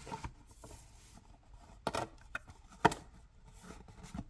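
Plastic parts of a 1/64 scale model diorama clicking and tapping as they are handled and pressed into place: a few sharp clicks, the loudest about three seconds in.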